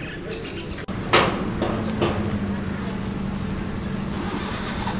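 Street noise: a steady low motor hum, like a vehicle idling, with scattered voices, after a sudden loud clatter about a second in.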